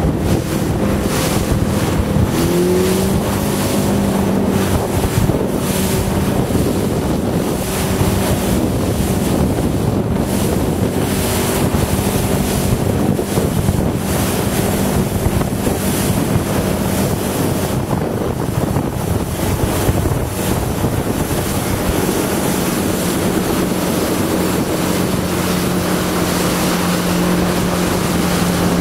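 Motorboat engine running steadily, rising in pitch about two seconds in, mixed with gusty wind on the microphone and the rush of water and waves.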